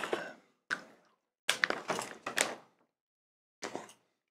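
Foil snack bag of popcorn crinkling in several short bursts as a hand reaches in and pulls popcorn out.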